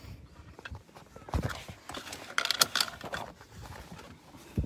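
Handling noise inside a small helicopter's cabin: irregular knocks and clatter as things are moved about. There is a thump about a second in, a burst of clatter around the middle and another thump near the end.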